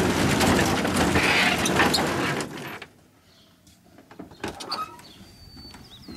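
Box truck's rear roll-up door being pushed up, a loud rattling slide of nearly three seconds, followed by a few quieter clicks and knocks as a door behind it is unlatched and opened.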